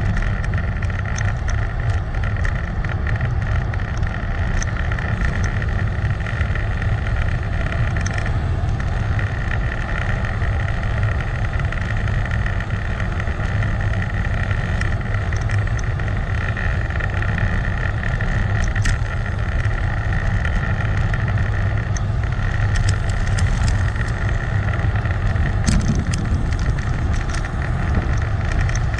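Steady wind rush and road noise on a moving GoPro's microphone during a ride, with a few light clicks scattered through it.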